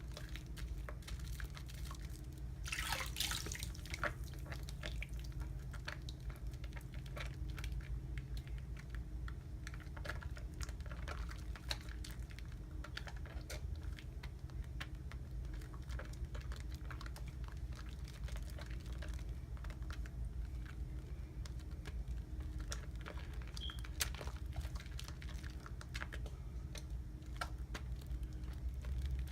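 Soap being lathered up wet: fine crackling and squishing of soap suds with drips of water throughout, and a brief louder wet rush about three seconds in.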